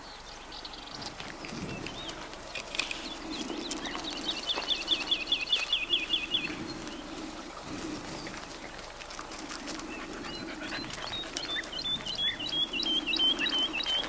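Wild songbird singing two phrases of rapid, repeated short falling notes, about four a second: one a few seconds in, the other near the end. Beneath it a low sound comes and goes in bouts of about a second.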